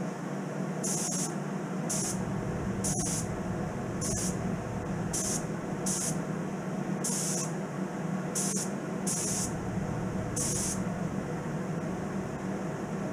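Gravity-feed spray gun spraying Cerakote in about ten short hissing bursts, each a fraction of a second long, onto small parts hung on a wire, over a steady low hum.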